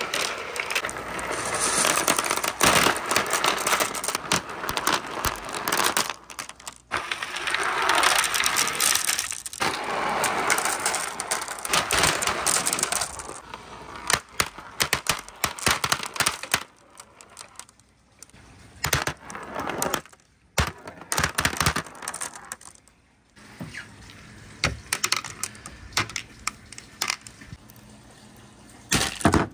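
Many marbles rolling and clattering down a wooden marble run: a dense rattle of clicks for the first dozen seconds or so, thinning afterwards to scattered clicks with short pauses.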